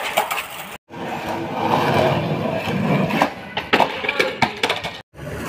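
Skateboard on rough concrete: a steady rolling noise from the wheels, then several sharp clacks as the board is popped, flipped and slapped down on the ground. Two brief silent gaps break it up.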